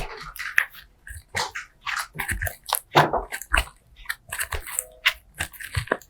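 Slime being squished and worked by hand, giving an irregular run of sticky clicks, pops and crackles, several a second.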